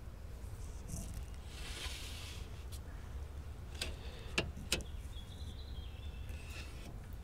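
Aluminum trim pieces being handled and laid on an aluminum strip on a wooden worktable: a soft sliding scrape, then three short sharp clicks about four seconds in, the last two the loudest, over a low steady background hum.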